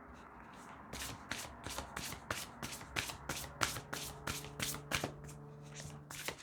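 A deck of tarot cards being shuffled by hand: a run of short swishes and snaps, about two to three a second, starting about a second in.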